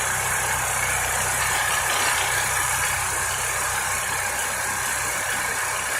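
DuroMax XP4850EH portable generator's engine running steadily with an even low hum.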